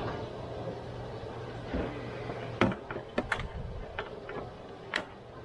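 Scattered sharp clicks and knocks of hard plastic parts being handled as a car's radiator cooling fan assembly is worked loose in the engine bay, over a steady low hum that stops about halfway through.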